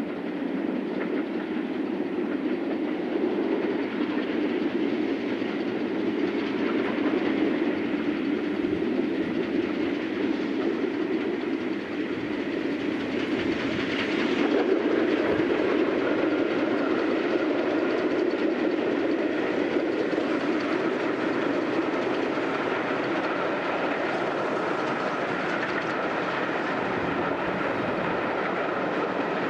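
LMS Princess Coronation class Pacific steam locomotive 6233 Duchess of Sutherland running past with its train of coaches. The sound is loudest a little after halfway, as the engine passes. After that the coaches' wheels clatter along the rails.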